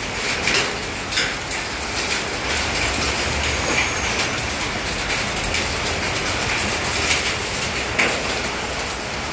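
Steady rush of heavy rain and muddy floodwater flowing down a street, heard from inside a car, with a low rumble underneath and scattered sharp ticks of drops striking.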